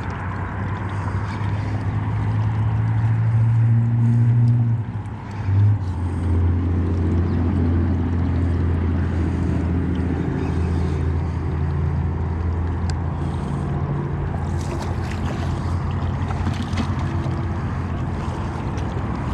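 Boat's outboard motor running steadily with a low hum. About five seconds in the engine note dips briefly, then settles slightly lower and runs on.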